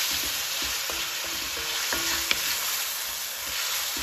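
Diced chicken thighs sizzling in hot olive oil in a pan while being stir-fried. The utensil scrapes and clicks against the pan here and there, with one sharp click a little after two seconds.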